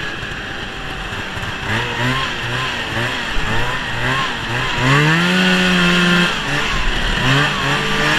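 Two-stroke engine of a 1971 Ski-Doo TNT 640 snowmobile running while the sled is ridden, with wind noise. Its pitch climbs about five seconds in and holds for a second or so.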